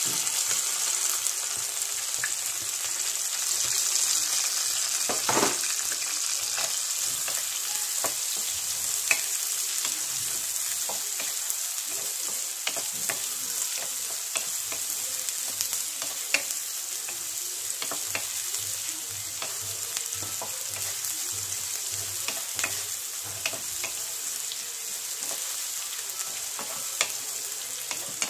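Chopped onions sizzling in hot oil in a kadhai (wok), just tipped in to be fried until browned, while a wooden spatula stirs them with scattered scraping taps against the pan. The sizzle starts loudly as the onions go in and eases slowly.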